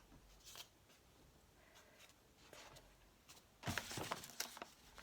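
Faint handling noises of cardboard and a plastic bottle: scattered light rustles and taps as a glued cardboard wing is pressed onto the bottle, with a louder run of rustling and knocking a little past halfway.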